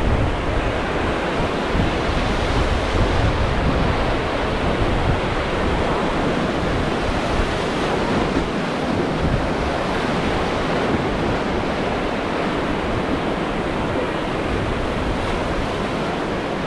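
Steady rushing of river water around a raft, with wind buffeting the microphone, heaviest in the first few seconds.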